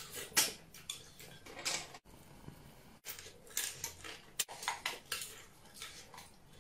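Noisy eating from a porcelain bowl: a string of irregular slurps and mouthfuls, with chopsticks clinking against the bowl. Several brief, abrupt dropouts break the sound.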